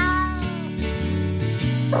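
A cat meows once, a drawn-out meow of under a second with a slowly falling pitch, over background music. Another, rougher cat sound begins right at the end.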